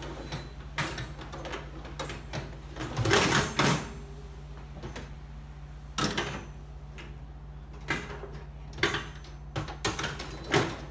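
Dishwasher racks being slid back in on their rails and the door handled: a series of separate metal-and-plastic knocks and clatters, the loudest cluster about three seconds in.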